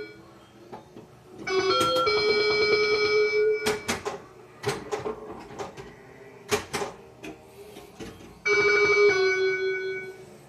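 Bally Cybernaut pinball machine's sound board playing electronic bell-like "bing" tones in two loud bursts, about a second and a half in and again near the end, with sharp clicks in between. The tones are not the expected "pew, pew" space-gun sounds, which the owner suspects come from an early or different ROM, or a Cheap Squeak sound board that is not original.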